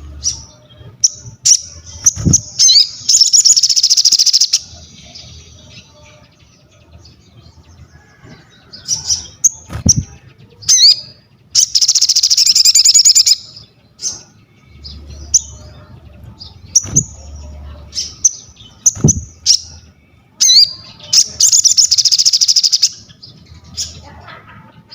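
A sogon songbird singing in a loud, energetic 'gacor' manner. Short high chirps and sweeping notes are broken by three long, rapid, buzzy trills, one near the start, one in the middle and one near the end. A few soft low thumps, likely the bird moving on its perch or cage, occur between the phrases.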